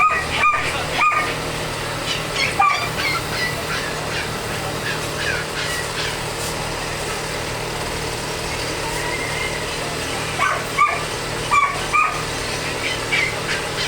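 A dog barking in short, sharp barks: a quick run of three at the start, one more a few seconds in, and another cluster near the end. Fainter bird chirps come in between, over a steady background hum.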